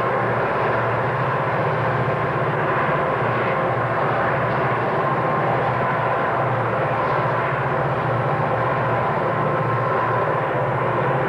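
Steady, distant drone of a diesel freight train's locomotives and rolling cars working along the mountainside.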